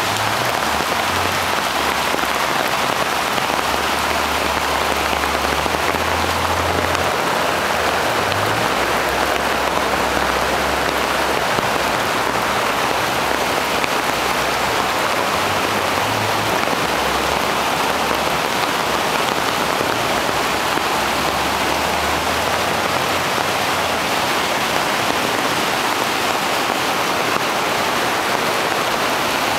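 Heavy rain pouring down steadily in a flash-flood downpour, an even, unbroken hiss of rain on surfaces.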